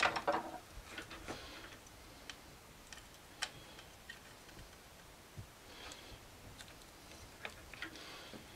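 Faint, irregular clicks, taps and rustles of a circuit board and its wires being handled and fitted back into a plastic battery-charger case.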